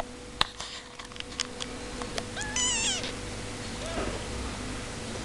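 A young kitten mewing: one high, wavering mew about two and a half seconds in, then a shorter, fainter one about a second later. A few sharp clicks come before it in the first two seconds.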